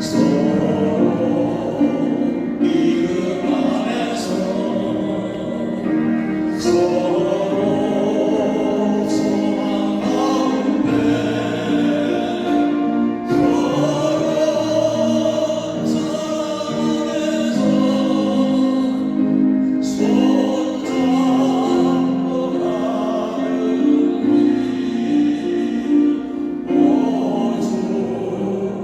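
A group of singers singing a Korean Christian hymn with accompaniment, holding long notes with vibrato.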